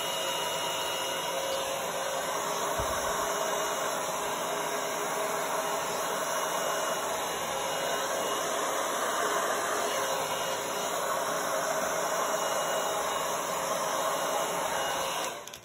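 Handheld blow dryer running steadily: a rushing hiss of air with a faint whine from its fan, switched off abruptly near the end.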